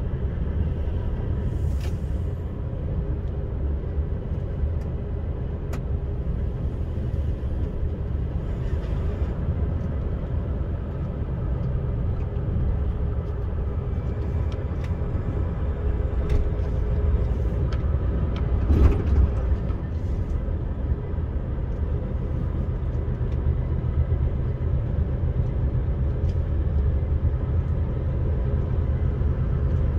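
Motor vehicle driving slowly along a narrow country lane, heard from inside the cab: a steady low engine and road rumble with faint small rattles, and one louder knock about two-thirds of the way through.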